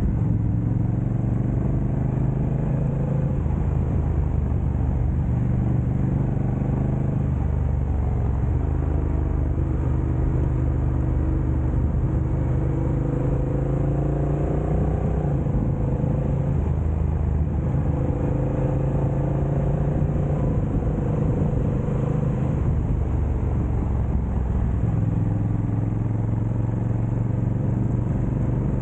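Motorcycle engine running under way, its pitch rising and then dropping several times as the rider accelerates and shifts through the gears.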